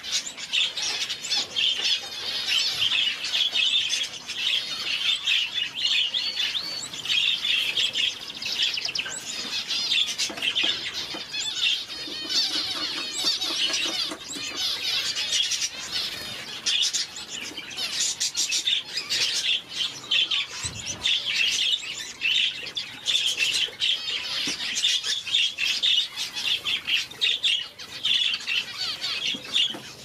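Parrot finches chirping busily: a continuous stream of short, high, thin calls, many overlapping without a pause.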